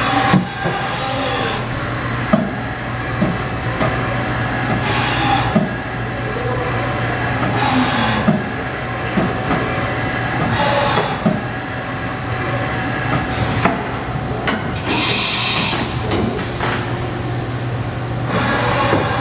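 Industrial machinery running: a steady low hum with faint whines, and short hissing bursts every two to three seconds. The longest and loudest hiss comes about three quarters of the way through.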